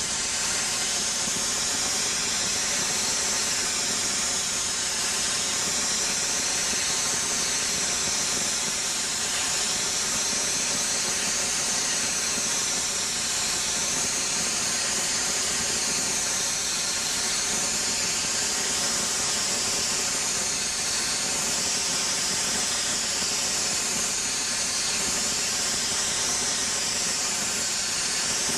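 Ultra-high-pressure water jet (1000–2500 bar) blasting steel from a lance nozzle: a loud, steady hiss whose highest part wavers slowly as the jet sweeps the surface, with a faint steady hum beneath.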